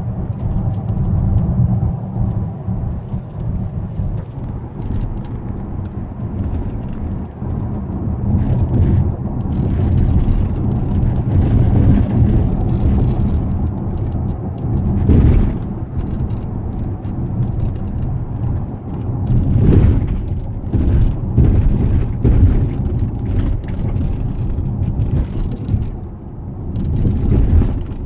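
Car on the move, heard from inside the cabin: a steady low road rumble with short, irregular creaks from the panoramic glass roof.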